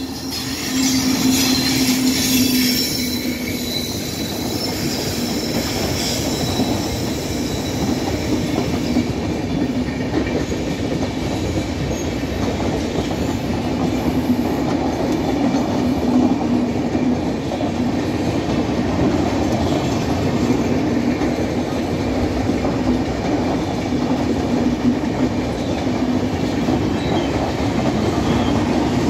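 Indian Railways electric locomotive and a long rake of LHB passenger coaches passing: a continuous rumble and rattle of wheels on the rails with a steady low drone under it, loudest in the first few seconds as the locomotive goes by.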